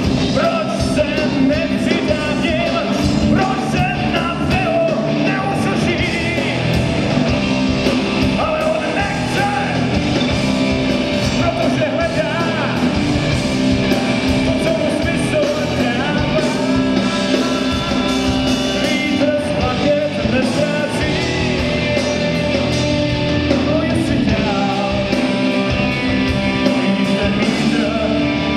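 Rock band playing live on electric guitars, bass guitar and drums, loud and continuous.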